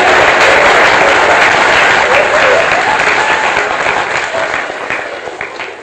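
Theatre audience applauding on an old stage recording, the applause fading out over the last few seconds.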